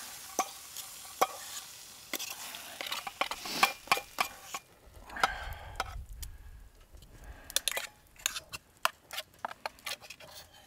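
Steak, mushrooms and cherry tomatoes sizzling in a frying pan over a wood-burning stove, with sharp clicks and scrapes of a utensil against the pan as the food is moved. The sizzle thins out about halfway through while the clicks go on.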